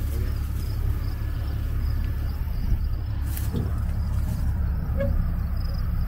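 Cummins diesel pickup engine idling with a steady low rumble while the truck backs up slowly toward a trailer hitch.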